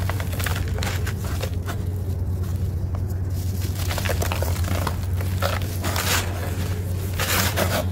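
Dry, dusty, gritty chunks being crushed in the hands, with the crumbled grit pouring back down in repeated crunchy, hissing bursts. A steady low hum runs underneath.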